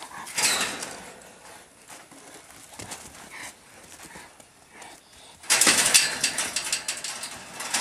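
Hooves of sheep and goats scuffling on a dry dirt pen floor as the small flock rushes about: a short scuffle about half a second in, then a louder, continuous clatter of hooves and scuffing from about five and a half seconds in.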